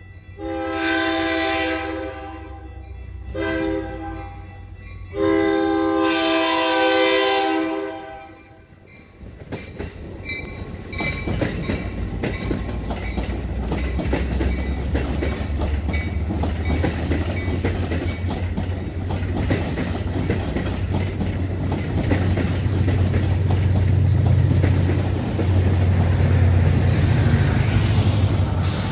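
Metra commuter train's horn sounds three blasts, long, short and long, ending the grade-crossing signal. The train then passes close by with steady wheel rumble and clatter on the rails. Near the end the EMD MP36PH-3S diesel locomotive pushing at the rear grows louder, with a faint high squeal falling in pitch.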